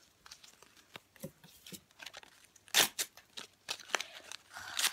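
Foil trading-card pack wrappers being torn and crinkled by hand, in short sharp rips and crackles, with one loud rip about three seconds in.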